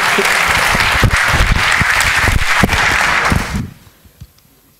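Conference audience applauding, mixed with a few low thumps; the clapping ends suddenly about three and a half seconds in.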